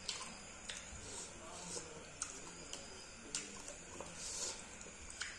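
Close-up eating sounds: wet chewing and lip smacks with scattered sharp clicks, and soft squelching of fingers mixing rice with fish curry on a steel plate.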